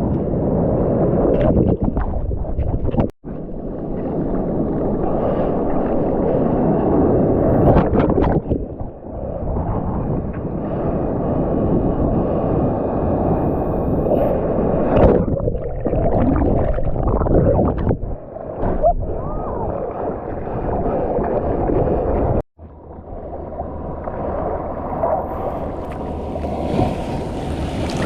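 Muffled surf and water sloshing and rushing against a GoPro's waterproof housing while bodyboarding in the waves. The sound drops out almost completely for a moment twice, about three seconds in and again about twenty-two seconds in.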